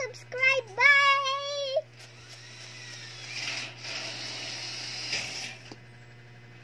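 A young girl's high-pitched voice in the first couple of seconds, ending on one long held note; then a faint hiss for a few seconds over a low steady hum.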